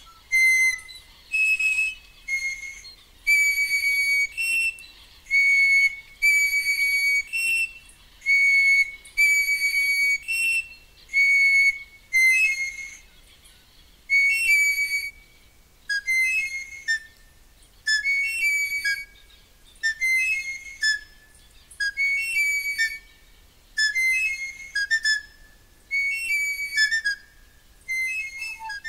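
Piloilo, a Mapuche stone-style panpipe, blown in a run of short, high whistle notes, about one a second, moving between two close pitches. From about halfway the notes grow shorter and quicker and alternate with a lower note.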